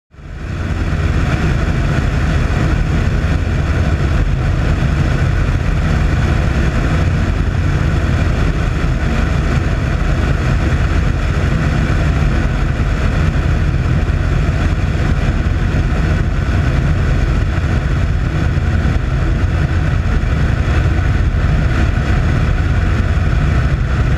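C-47 transport's twin radial engines droning steadily in flight, mixed with rushing air over the camera on the airframe. The sound comes in abruptly at the start and then holds level and loud.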